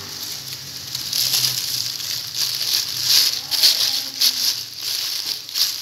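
Butter paper crinkling and rustling in irregular bursts as hands tuck it down over marinated chicken in a steel pot.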